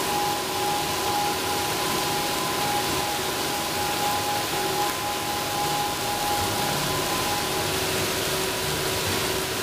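Beef gut processing machine running with water spraying from it: a steady rushing noise with a constant whine.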